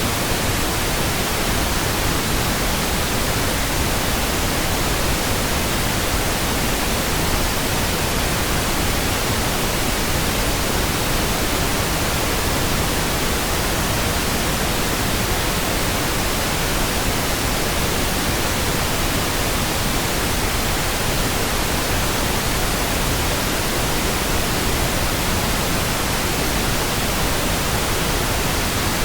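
Synthetic pink noise: a steady, even hiss across the whole range, with no changes or sudden sounds.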